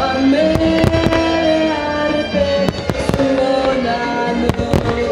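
Aerial firework shells bursting in a quick, irregular run of sharp bangs, over loud melodic music with long held notes.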